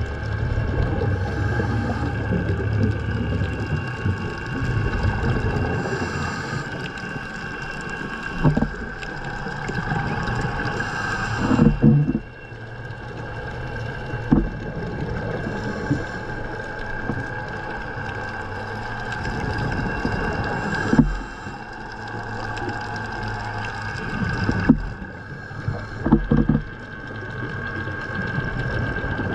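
A scuba diver breathing through a regulator, heard underwater: a hiss on each breath and bursts of exhaled bubbles gurgling, roughly every four to five seconds, over a steady high-pitched hum.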